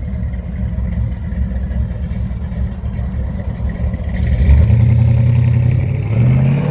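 Car engine idling with a low, uneven rumble. About four seconds in it gets louder, with a steadier low note that rises slightly near the end.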